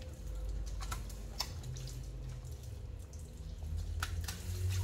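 Water running from a kitchen sink faucet in a thin stream, with scattered drips and small splashes as a wet puppy is washed in the sink.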